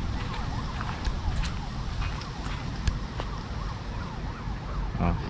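Footsteps on a grassy dirt track with wind rumbling on the microphone. Behind them a faint warbling tone rises and falls several times a second throughout.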